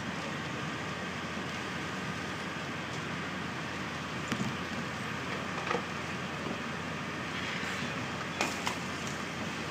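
Van fully engulfed in flames, burning with a steady rushing noise and a few short pops, about four and a half, six and eight and a half seconds in.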